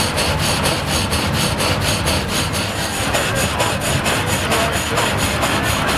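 Belt-driven rack saw bench powered by a steam traction engine, the saw cutting through a log. A steady grinding noise with a regular beat about five times a second.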